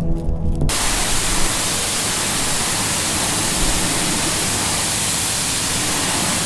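High-pressure water spray hissing against a car and the wet ground at a car wash, a steady loud hiss. It starts abruptly under a second in, cutting off the music before it.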